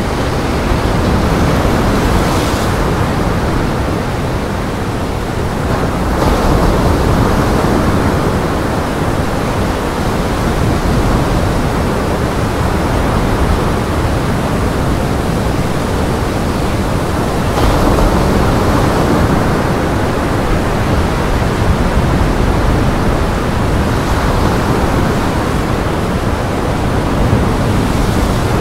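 Storm waves breaking in gale-force wind: a dense, even rush of surf and wind that swells and eases every few seconds.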